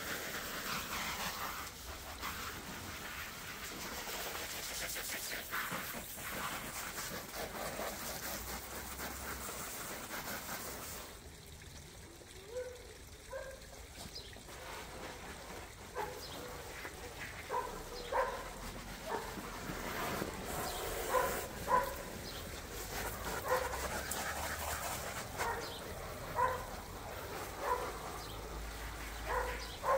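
A garden hose spray gun hissing as it jets water over an inflatable hot tub lid, with a short pause about halfway. In the second half, short high-pitched yelps repeat about once a second over the spray.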